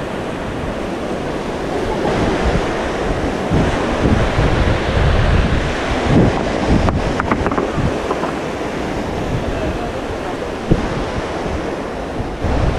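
Sea waves washing against the shore, with gusty wind rumbling on the microphone.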